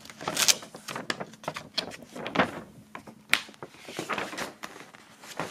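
A folded paper poster being unfolded and handled: irregular rustling and crackling of the paper, with scattered sharp crackles.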